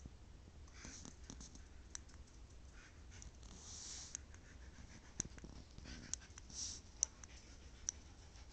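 A dog's paws scuffing and scratching on carpet as it pounces and paws at the floor, in short scratchy bursts with irregular sharp clicks.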